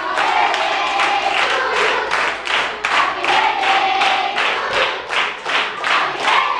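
A group clapping in rhythm, about three claps a second, while voices sing a birthday song together.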